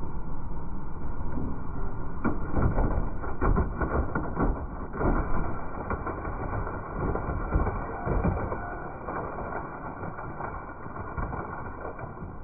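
Kobelco excavator running while it crushes something, with repeated crunching and cracking breaks, the loudest a few seconds in, the noise easing off over the second half.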